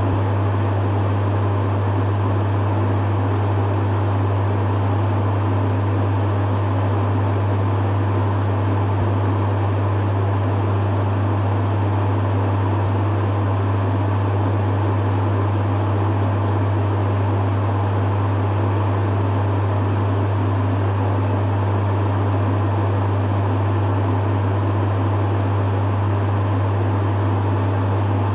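Dehumidifier running steadily: a strong low hum under the even rush of its fan's air.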